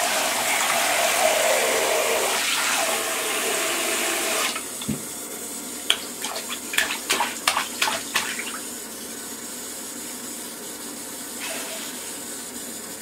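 Handheld shower head spraying water into a bathtub, cutting off suddenly about four and a half seconds in. This is followed by a short run of quick splashes and knocks.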